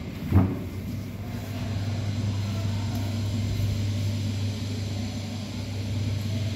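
A single thump about half a second in as a wardrobe door is handled, followed by a steady low hum.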